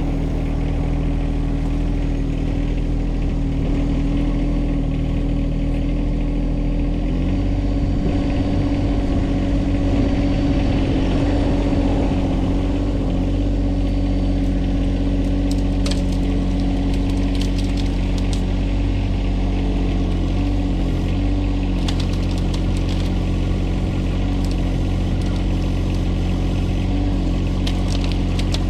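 Tractor engine running steadily while it works a grapple bucket. The engine note rises slightly about seven seconds in and settles back later. Scattered short clicks and knocks come over it in the second half.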